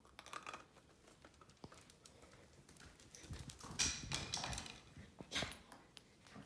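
A Silken Windhound's claws and paws clicking and knocking on a wooden floor as it runs off with a bully stick. The clatter is busiest and loudest about three to five and a half seconds in.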